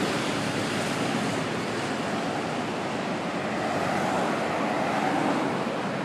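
Cars passing on a multi-lane freeway: a steady rush of tyre and road noise that swells slightly as a vehicle goes by about four to five seconds in.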